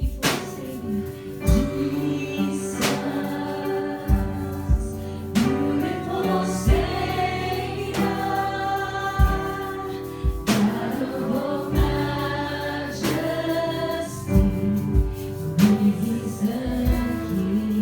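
Christian worship song: a group of voices singing over a band with a steady drum beat.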